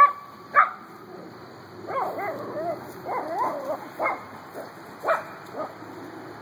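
Chihuahua barking in sharp, high yaps, on and off, with a run of wavering yelps about two to four seconds in: excited barking at a deer it has just noticed.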